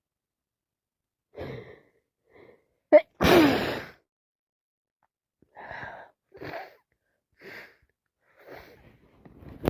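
A person with a heavy head cold takes a sharp catching breath and sneezes once, loudly, about three seconds in, then breathes in and out in several short, quieter breaths about a second apart.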